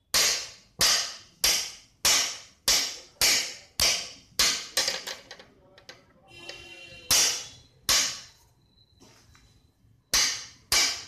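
Rimless glasses with polycarbonate lenses smacked hard against a surface again and again, a sharp crack roughly every half second, in a test showing that the lenses don't break. Midway the strikes give way briefly to a scraping rattle and a pause before a few more hits.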